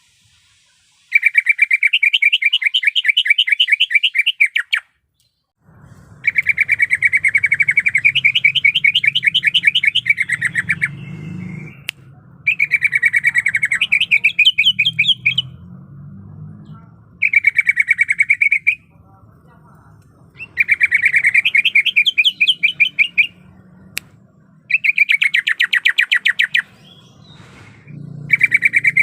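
Cucak ijo (green leafbird) singing: about seven fast, trilled phrases of rapidly repeated notes, each from under two to about four seconds long, with short pauses between them. A faint low hum runs underneath from about six seconds in.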